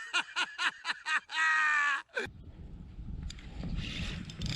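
A person laughing in a quick run of short bursts, ending in one longer falling laugh. About two seconds in, this cuts to a steady low rumble like wind on the microphone out on open water.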